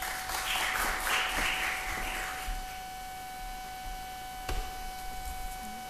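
Audience applauding briefly, dying away about two and a half seconds in, followed by a single knock a couple of seconds later. A steady electrical hum runs underneath.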